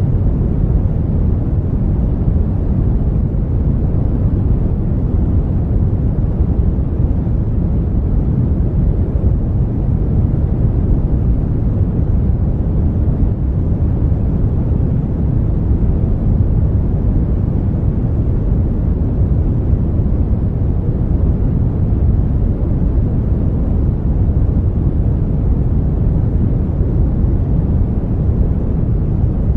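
Steady brown noise: an even, deep rushing hiss weighted toward the low end, with no changes or events.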